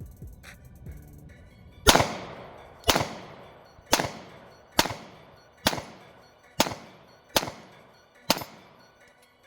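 Glock 43X 9mm pistol firing eight shots at an even pace of about one a second, each shot trailing off in echo. The string runs without a stoppage.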